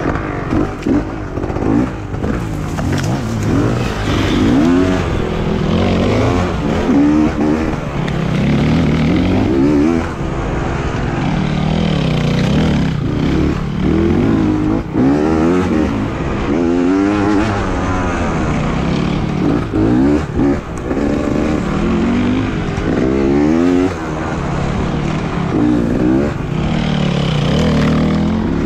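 Beta 300 two-stroke enduro motorcycle engine under hard riding, revving up and falling back again and again, with short throttle cuts between the climbs.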